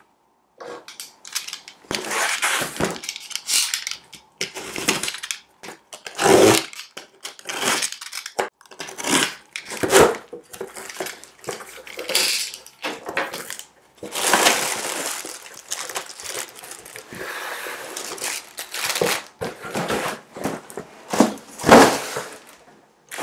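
A cardboard box being unpacked by hand: a utility knife slitting the tape, the flaps pulled back, and plastic-wrapped items rustled and lifted out, as a run of irregular scraping, tearing and rustling with sharp knocks among it.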